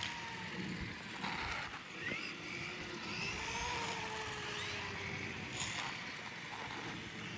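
Electric motors of radio-controlled motorcycles whining as they are driven, the pitch sliding up and down as the bikes speed up and slow down.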